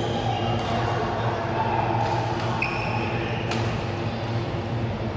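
Badminton rackets striking a shuttlecock in a rally: three sharp hits about a second and a half apart, with a brief squeak between them, over a steady low hum.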